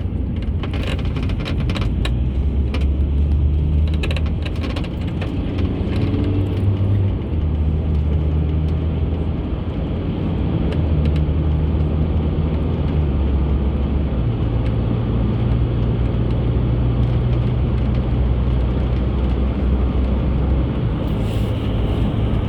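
Steady road and engine noise of a moving car: a low drone that shifts in pitch every few seconds, with a few light clicks in the first few seconds.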